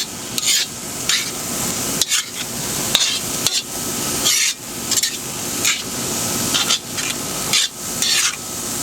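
Cauliflower rice sizzling in a cast iron wok as it is stir-fried, with a utensil scraping and knocking against the wok about once a second while the rice is tossed.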